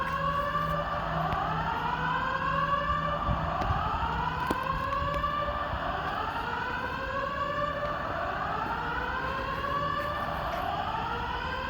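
Building fire alarm sounding its evacuation signal: a repeated rising whoop, one sweep about every one and a half seconds, steady and unbroken.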